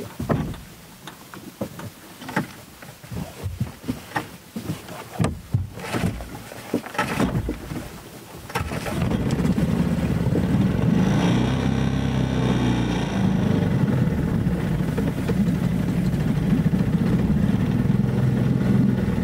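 A small outboard motor on a sailboat being started: several irregular knocks and clunks for the first eight seconds or so, then the engine catches and runs steadily at idle.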